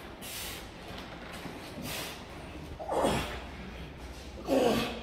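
A man breathing hard from the exertion of barbell curls: a few sharp breaths, then about three seconds in two loud gasping exhales with a voiced groan that falls in pitch.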